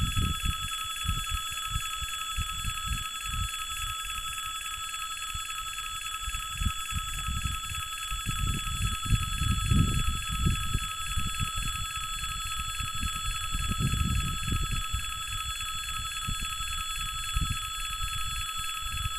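Russian railway level-crossing warning signal sounding without a break: a steady high alarm tone with several pitches held together. Under it runs an irregular low rumble that swells about ten seconds in and again a few seconds later.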